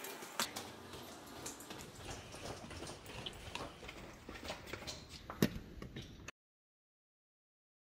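Faint footsteps and phone handling on a tiled stairwell and corridor floor: a scatter of soft clicks and taps, with a louder knock about half a second in and another about five and a half seconds in. The sound cuts off to dead silence a little after six seconds in.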